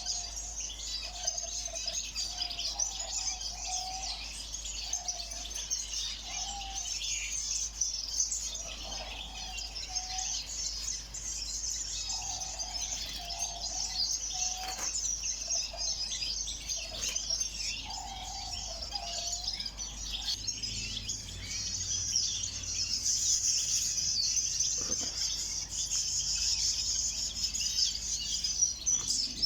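A flock of caged ornamental birds chirping and chattering continuously, many high twittering calls overlapping. A lower-pitched short call repeats every second or so through the first two-thirds, then stops.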